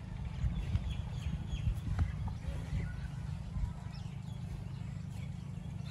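Rural ambience: a steady low rumble with small birds chirping faintly now and then, and a single knock about two seconds in.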